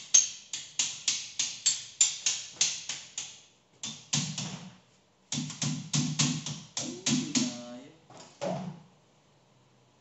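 Rapid knocking on a galvanized sheet-metal exhaust duct, about four strikes a second, each with a short ring. The knocking comes in three runs with brief pauses and stops near the end.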